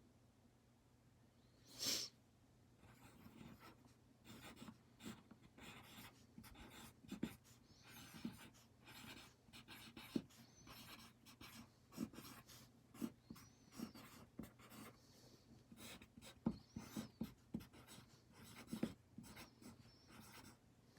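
Handwriting: a writing tool scratching out words in many short strokes, faint, starting about three seconds in. A single short knock comes just before the writing starts.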